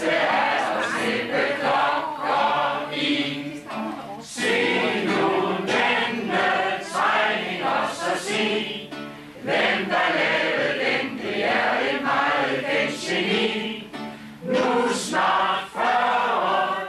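A table of dinner guests singing a Danish party song together from song sheets, many voices in unison, line by line with short breaks between phrases.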